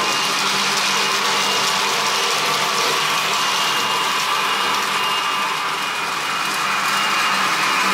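Roco TT-scale model train of tank wagons rolling past on curved track, a steady rattle of small metal wheels on the rails.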